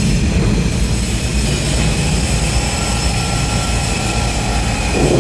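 Steady, loud machinery noise of a steel fabrication shop: a continuous low rumble with a faint steady whine on top.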